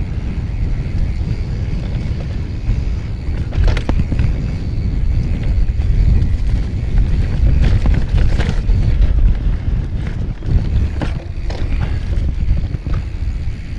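Mountain bike ridden along a trail: heavy wind buffeting on the microphone and a low rumble from the tyres, with several sharp rattles and knocks from the bike over bumps.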